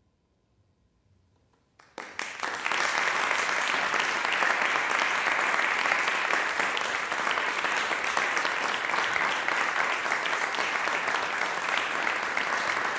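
Near silence for about two seconds, then a concert audience starts applauding and keeps clapping steadily: applause at the end of a piece.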